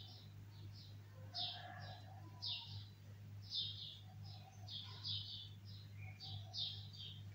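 Bulbul calling: a run of short, high chirps, two or three a second at irregular spacing, with a few lower notes among them, over a steady low hum.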